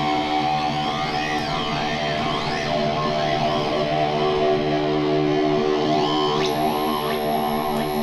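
Homemade dub-siren style dual oscillator played through effects pedals: electronic tones sweep up and down in arcs over a steady, layered drone. About six and a half seconds in, a high, thin steady tone comes in and holds.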